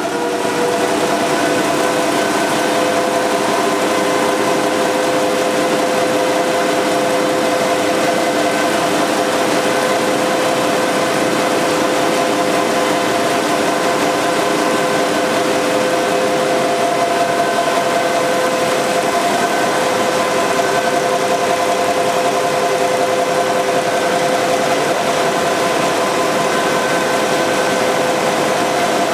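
Müller Martini Progress two-colour web offset press running steadily, its zig-zag folder laying down printed paper. The sound is an even mechanical din with several high whines, each held on one pitch.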